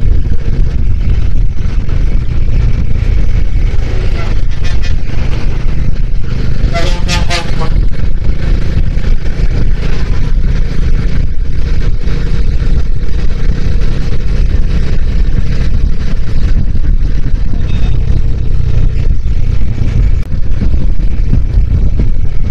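Wind rumble on the rider's microphone over a Bajaj Dominar's single-cylinder engine running at a steady cruise. A vehicle horn sounds once for about a second, some seven seconds in.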